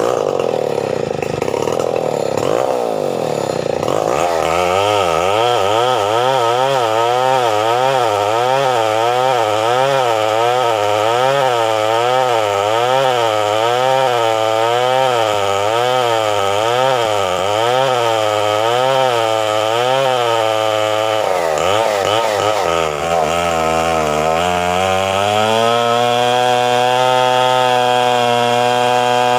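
Two-stroke chainsaw running at high revs while cutting wood, its engine pitch rising and falling about once a second. About three-quarters of the way through the revs dip briefly, then climb back and hold steadier and higher.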